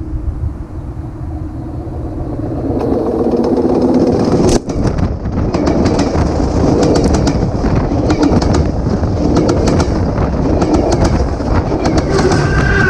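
Train passing close by on the track: a steady rumble of wheels on the rails with frequent sharp clicks, growing louder over the first few seconds.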